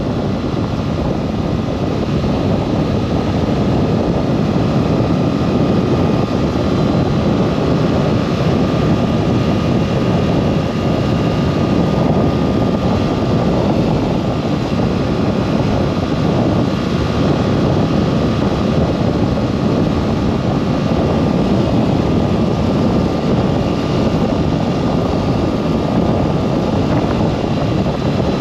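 Motorcycle underway at a steady speed: the engine running evenly under a continuous rush of wind noise.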